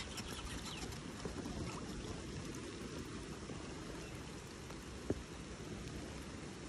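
Steady rain falling on a lake surface, an even hiss and patter, with one short sharp click about five seconds in.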